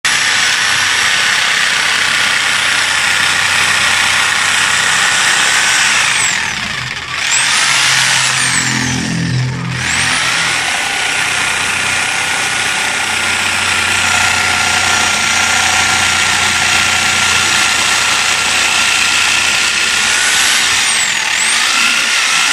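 Modern-brand electric jigsaw running and sawing through a thick wooden plank: a steady high motor whine over the rasp of the blade. The whine sags and picks back up about six seconds in, and again near the end.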